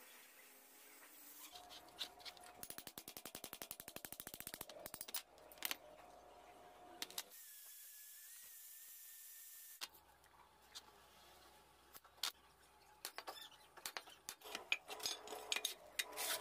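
Faint metalworking sounds. First a fast rattling run of ticks. Then an angle grinder's wire cup brush runs on a steel disc as a steady high whine with hiss for a few seconds. Scattered metal clinks and knocks follow as the steel pieces are handled.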